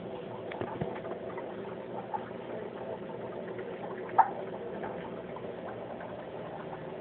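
Aquarium pump humming steadily with water bubbling, a few small clicks, and one sharp tap about four seconds in.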